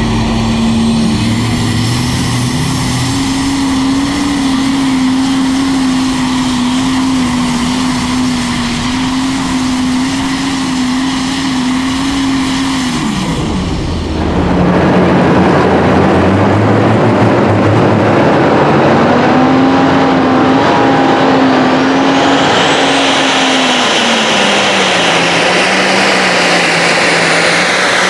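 Diesel super stock pulling tractors at full throttle under load. The first engine's pitch holds high, then sags and drops away about 13 s in. A second, louder and rougher run follows: its pitch climbs, holds and falls off again, with a high whine rising near the end.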